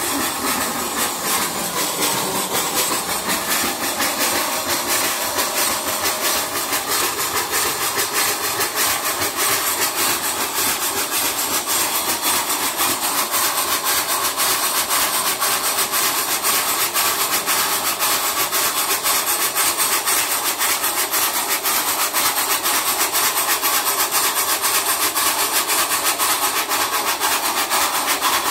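Replica of Trevithick's 1802 single-cylinder high-pressure steam locomotive running: a steady hiss of escaping steam over a fast, even beat from the engine.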